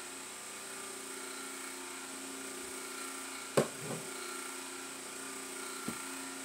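A steady hum with a high whine from an unseen machine, with a sudden sharp click about halfway through followed by a brief throaty sound, and a smaller click near the end.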